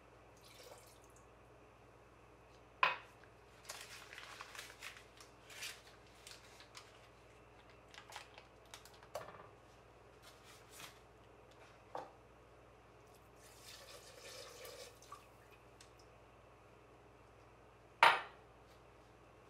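Ingredients going into an empty nonstick saucepan: a hissing pour of granulated sugar, soft drops and light clinks as butter and rum are added, and two sharp knocks, about three seconds in and near the end.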